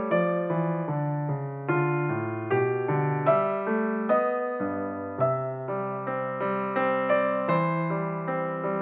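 Background music: a slow, gentle solo piano piece, notes struck about twice a second and each fading before the next.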